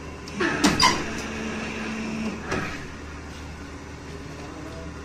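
Large hydraulic press working: a loud metallic clatter about half a second in, a brief steady whine, and another clank about two and a half seconds in, over a constant low machine hum.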